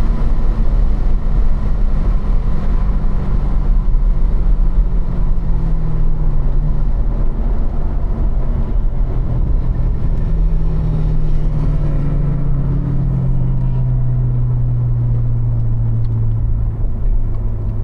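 2015 Corvette Stingray Z51's 6.2-litre LT1 V8, heard from inside the cabin, its note falling steadily as the car slows with the revs dropping, over a constant low road rumble.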